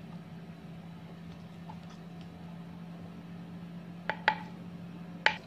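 Spoons clicking against the inside of a mortar three times, twice in quick succession about four seconds in and once more near the end, over a steady low hum.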